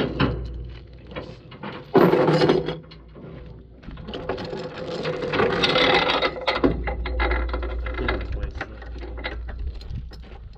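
Steel tie-down chain rattling and clanking as it is dragged across a wooden trailer deck and pulled up over a skid loader, with a loud clank about two seconds in and a longer run of rattling in the middle.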